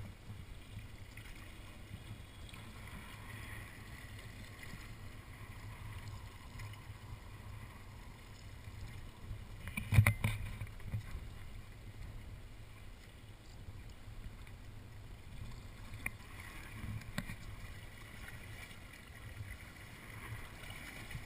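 A fishing boat's motor running with a steady low rumble, with one sharp knock about ten seconds in.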